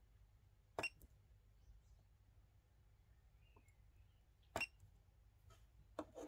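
Pen-probe battery spot welder firing weld pulses through a metal tab on an 18650 cell terminal: a sharp snap about a second in and another about four and a half seconds in, with two more close together near the end.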